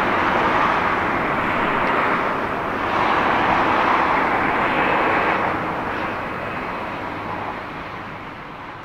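Former-JNR 413/455-series electric multiple unit running past, a steady rush of running and rolling noise that fades out over the last few seconds.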